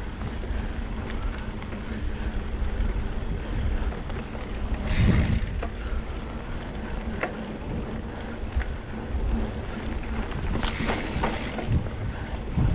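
Wind buffeting the microphone over the rumble of tyres on a dirt trail during a ride. There are two brief hissing bursts, about five seconds in and again near eleven seconds.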